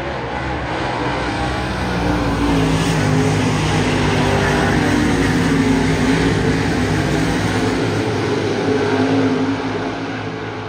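Several dirt super late model race cars' V8 engines running hard together at racing speed, the engine notes wavering as they lift and accelerate. The sound swells as the pack comes round and eases near the end.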